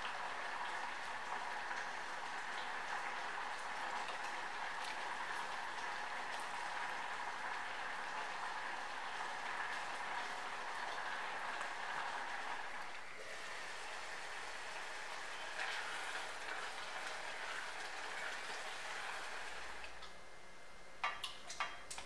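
Wet, sticky no-knead focaccia dough being stretched and folded by hand in a glass bowl, a dense wet crackling. A few sharp clinks come near the end.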